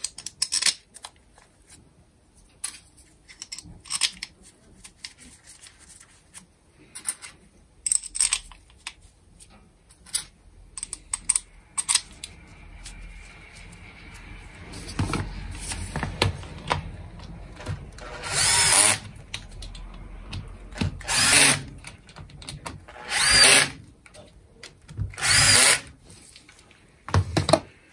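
Small clicks of parts being handled, then a cordless driver running in about five short bursts, roughly two seconds apart, each with a whine that rises and falls, as it drives in the screws of a Makita 9558NB angle grinder's gear housing.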